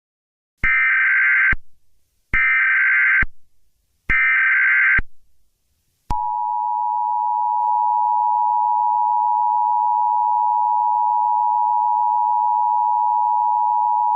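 Emergency Alert System header: three short buzzing bursts of SAME digital data tones, each just under a second long, then after a short gap the steady two-tone EAS attention signal, held for about eight seconds.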